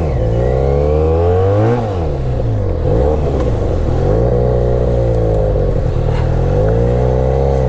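Motorcycle engine running on the move, its revs dipping and climbing again several times.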